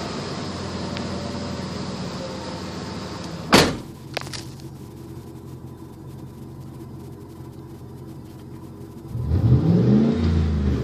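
Ford Expedition's 4.6 L V8 running with its muffler removed, leaving stock headers and catalytic converters, heard from inside the cabin. The revs settle back to a steady idle, with a sharp click about three and a half seconds in. Near the end one quick throttle blip rises in pitch and falls back.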